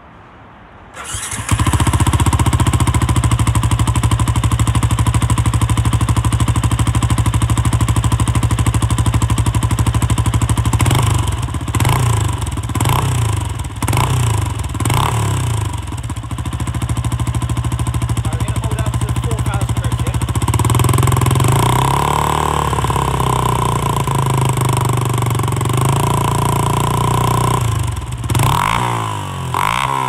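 Yamaha YZF-R125's 125 cc single-cylinder four-stroke engine, breathing through a Scorpion exhaust with its dB killer fitted, starting warm about a second in and idling steadily. From about halfway it is revved in a string of quick blips, then held at higher revs for several seconds, with more blips near the end.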